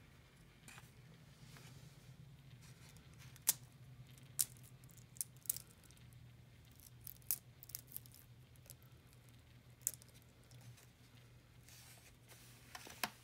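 A raw chicken egg being tapped and cracked by hand against a foam plate: about ten sharp taps and small shell cracks at irregular intervals. A low steady hum runs underneath.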